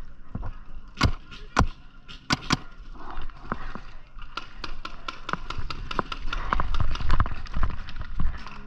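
Paintball fire: a few separate sharp pops in the first three seconds, then a rapid string of pops at about four to five a second from around four and a half seconds in.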